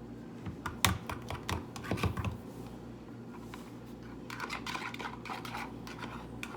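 A utensil clicking and scraping against a bowl as a thick mayonnaise-and-ketchup sauce is mixed and scraped off the sides: irregular light clicks, with two louder knocks about one and two seconds in and a quicker run of clicks near the end.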